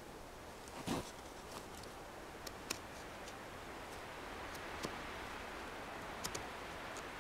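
Fallkniven A1 knife blade cutting into a green sapling stick: a knock about a second in, then a few scattered sharp clicks as the blade bites into the wood, over a faint steady hiss.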